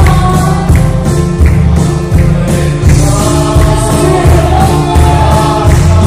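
A congregation singing a gospel hymn together, with a loud, steady beat from large church drums.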